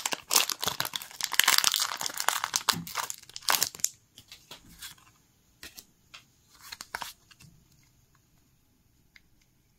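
Foil Pokémon booster pack wrapper being torn open and crinkled for about four seconds, then a few light clicks as the stack of cards is handled.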